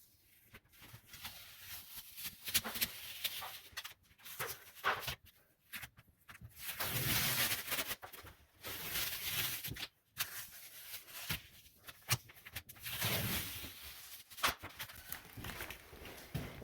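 Irregular rustling, scraping and swishing handling noises from hands-on work at close range, with several longer scratchy swishes.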